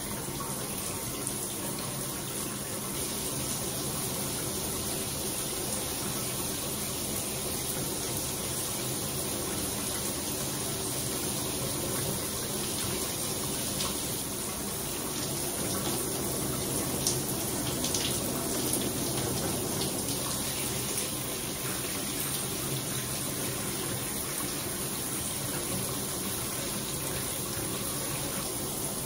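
Shower running: a steady stream of water spraying and splashing in a tiled shower.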